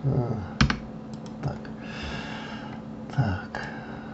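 Computer mouse and keyboard clicks during 3D modelling work: several sharp clicks, the loudest a pair about half a second in, then more around one and a half seconds and near the end. A soft hiss sounds near the middle.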